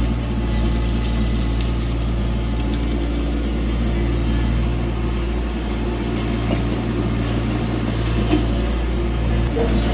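Diesel engine of a Tata Hitachi EX70 excavator running steadily, with a couple of light knocks near the end.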